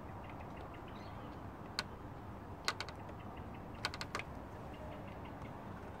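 Four sharp plastic-and-metal clicks as spade connectors on wire leads are pushed onto the terminals of a car's under-hood fuse and relay box, the last two close together, over a steady low hiss.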